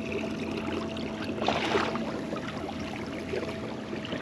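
Water lapping and trickling along a moving kayak's hull, with a brief louder splash about one and a half seconds in, over a steady faint electric hum.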